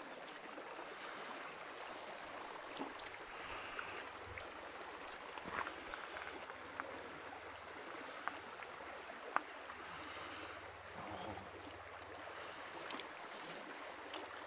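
Small mountain creek running, a steady soft rush of flowing water, with a few faint sharp ticks scattered through it.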